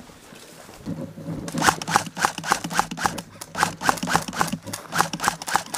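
Quick, regular footsteps, about four a second, starting about a second and a half in: a player running, with a steady low hum under them.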